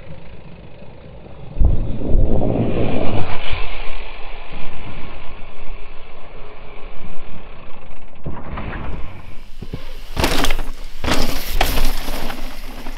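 Mountain bikes running fast down a dirt trail: tyres rolling and scrubbing over loose dirt, with wind noise on the microphone and two sharp knocks from the bike near the end.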